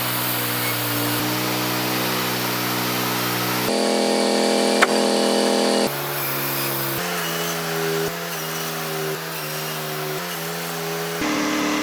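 Wood-Mizer LT40 bandsaw sawmill running and sawing through an ash log: a steady machine drone under the hiss of the band blade cutting, its pitch shifting abruptly several times. A sharp click about 5 seconds in.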